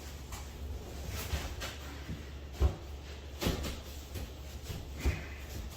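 Three light knocks, as of objects being handled or set down, spread over a few seconds above a steady low hum; the first is the loudest.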